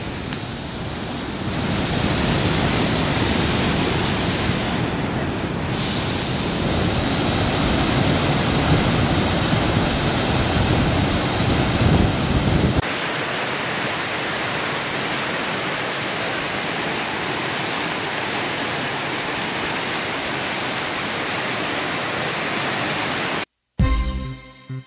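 Rushing water from a flooded river and a waterfall, a steady full noise that switches abruptly a little past halfway to a thinner, hissier rush. Music starts just before the end.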